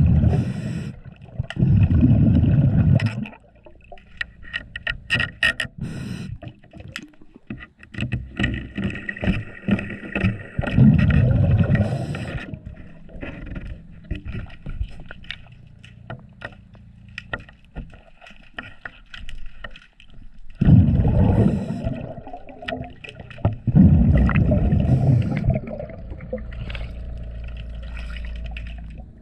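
Underwater sound of a diver's breathing regulator: loud bubbling exhalations come every few seconds. In between, a hand tool scrapes and clicks against the fouled trim tab.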